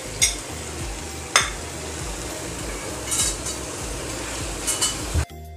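Raw chicken pieces sizzling in hot oil and melted butter in a frying pan, with a few sharp knocks and scrapes of a spatula against the pan. The frying cuts off about five seconds in and faint music takes over.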